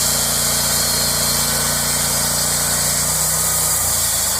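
Engine-driven sawmill running under load, its blade cutting through a log with a steady high hiss over the engine's drone. A little after three seconds in, the engine note drops lower.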